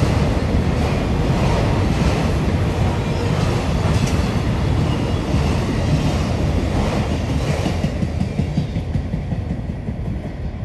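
CSX autorack freight cars rolling past with a steady rumble of wheels on rail, dying away near the end as the last car clears.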